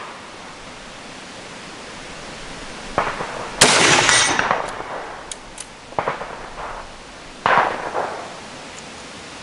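Rifle shots: four sharp reports, the loudest about three and a half seconds in, each trailing off in an echo.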